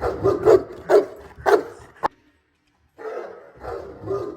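A dog barking in a rapid series of barks. About two seconds in there is a sharp click and a short gap, then the barking starts again.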